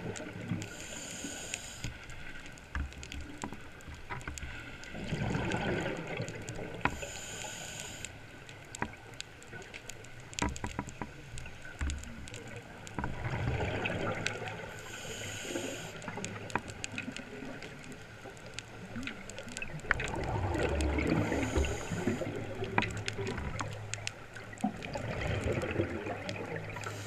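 Scuba diver breathing through a regulator underwater: a hissing inhale roughly every six to seven seconds, each followed a few seconds later by a bubbling exhale. Faint scattered clicks run throughout.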